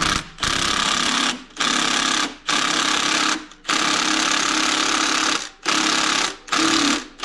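Power tool, impact-type, running bolts of the engine mount in or out with a rapid rattling hammer, in about seven short bursts with brief pauses, one of them nearly two seconds long.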